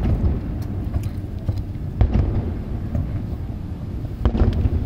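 Aerial firework shells bursting overhead: deep booms at the start, about two seconds in and a quick cluster near the end, over a continuous low rolling rumble like thunder.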